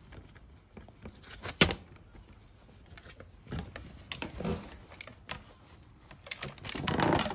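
Handling noises from an HP CR278A printhead cleaning cassette as its cleaning cloth is threaded round a pin: one sharp click about a second and a half in, scattered light knocks and rustles in the middle, and a longer rustle near the end.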